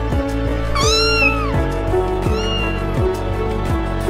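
Newborn kittens mewing, crying for their mother cat: a long, strong rising-and-falling mew about a second in and a shorter, weaker one around two and a half seconds. Background music plays throughout.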